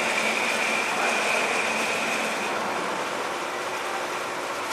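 Amada HA250W hydraulic horizontal band saw cutting through a metal bar, a steady hiss of blade and drive with a high whine. The whine fades out a little past halfway through, as the cut comes to its end.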